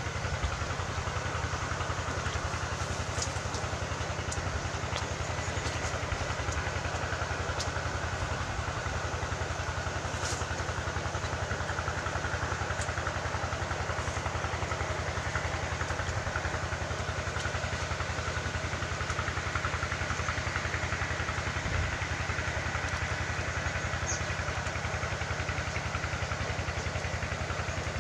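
An engine running steadily: a low, evenly pulsing hum under a steady hiss, with a few faint clicks.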